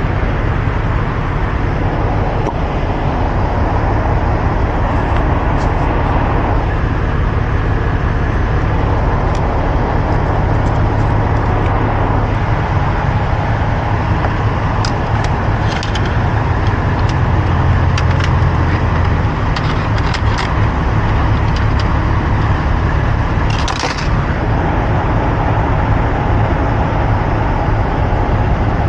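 Vehicle engine idling close by, a steady low rumble, with scattered faint clicks and ticks over it.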